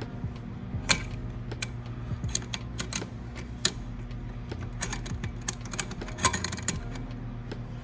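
Irregular light metallic clicks and clinks of a hand wrench working a hose fitting on a catch can as it is tightened, over a steady low hum.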